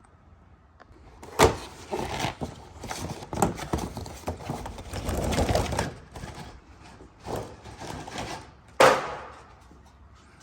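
Engine air filter housing being opened and the filter handled: sharp snaps about one and a half seconds and nine seconds in, a smaller one about three and a half seconds in, with plastic scraping and rustling between.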